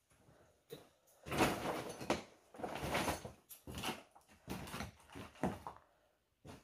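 Uneven scuffing and crunching of people moving over loose rubble and dumped rubbish on a mine-tunnel floor, in irregular bursts that grow louder about a second in.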